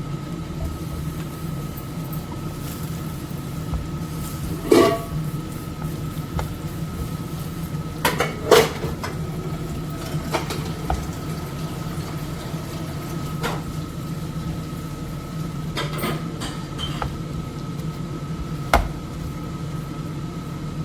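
Cookware and utensils clinking and knocking a handful of times over a steady low hum.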